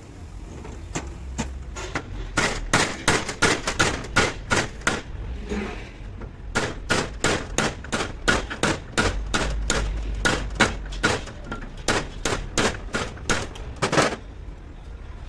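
Repeated hammer blows, about three to four a second, with a short break about five to six seconds in, struck while a truck brake booster is being worked on.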